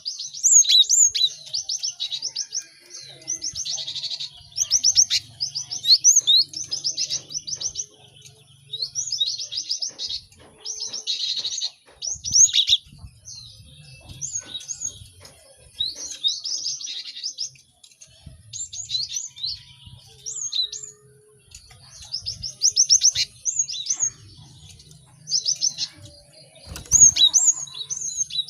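Cinereous tits calling busily: short bursts of rapid, high chirps, one burst after another with brief gaps.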